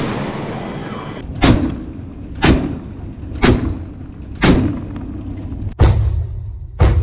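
Naval deck gun firing a steady series of single shots, about one a second. Each is a sharp report with a short fading rumble. Two more shots come near the end.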